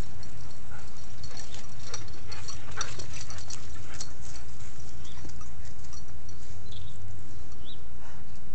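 Several dogs playing together on a lawn: a quick clatter of clicks and jingles through the first half, then a few short high squeaks, over a steady low rumble.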